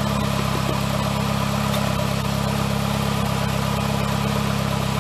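Saab 9-3 car engine, mounted bare in an open steel frame, idling steadily.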